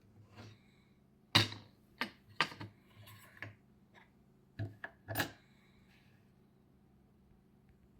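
A string of sharp metallic clicks and clinks, some with a brief ring, the loudest about a second and a half in and again around five seconds: a KESO 8000 Omega² lock and metal lock tools being handled.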